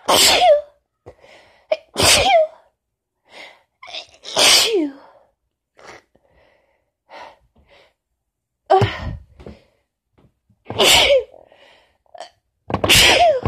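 A woman sneezing in a strong fit, six hard sneezes with quick breaths in between and a longer pause in the middle. The sneezes come from the tickle of a lingering cold combined with allergies.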